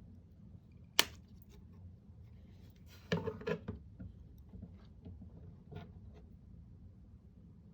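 Small tools and parts being handled on a workbench: a single sharp click about a second in, then a short burst of scraping and rattling about three seconds in, and a few faint ticks after.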